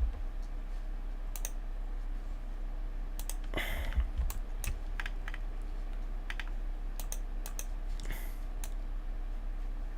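Computer keyboard keystrokes and clicks, scattered and irregular, with a small cluster around the middle, over a low steady hum.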